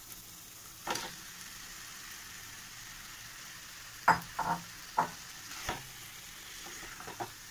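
Raw marinated chicken frying in a hot non-stick pan of onion and ginger-garlic paste, sizzling steadily. A spatula knocks and scrapes against the pan several times from about four seconds in.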